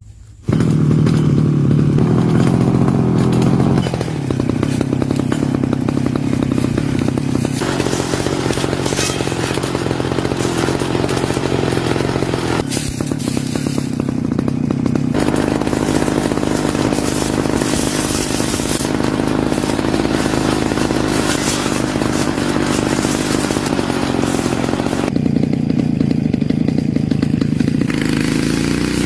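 Petrol lawn mower engine running hard, starting abruptly about half a second in, its note dropping at about four seconds, with dense clattering and cracking as the blade chops wood.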